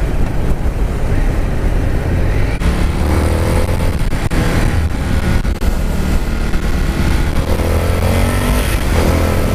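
Indian FTR 1200's 1203cc V-twin running under way, heard through heavy wind rumble on a helmet-mounted microphone. The engine note rises a couple of times as the bike picks up speed.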